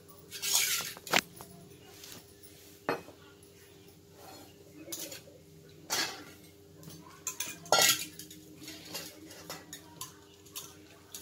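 A knife clinking and scraping against a steel bowl as vegetables are cut by hand: scattered sharp knocks with pauses between them, the loudest about three-quarters of the way through. A faint steady hum lies underneath.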